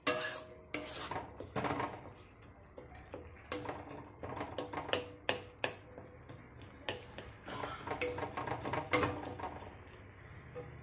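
Spatula scraping and knocking against a steel kadai while stirring and frying a thick tomato-and-spice masala: irregular scrapes and taps, some with a short metallic ring.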